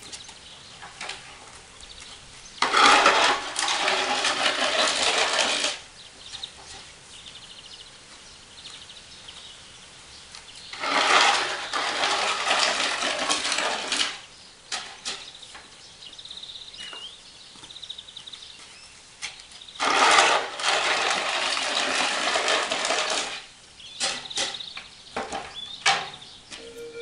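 Snow shovel blade scraping across paving stones as snow is pushed off the pavement: three long scrapes of about three seconds each, with light knocks and clicks of the shovel between them.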